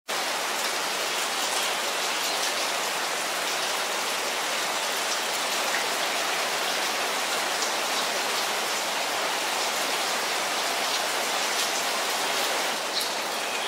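Steady rain falling on garden foliage and potted plants: an even hiss of rain with scattered small drop ticks.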